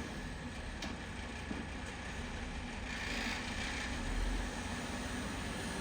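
Heavy construction machine's engine running steadily, with a brief rise in hiss about three seconds in.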